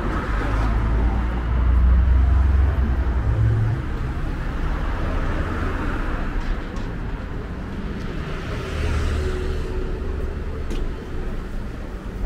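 Street traffic: cars driving past, with a low engine and tyre rumble that swells about two seconds in and again near nine seconds.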